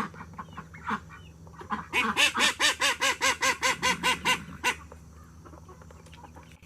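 A duck quacking in a fast run of about a dozen loud calls, roughly five a second, starting about two seconds in and lasting nearly three seconds.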